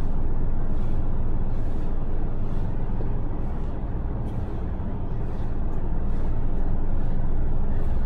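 A steady low rumble, with faint soft pats and presses of hands kneading bread dough on a floured counter.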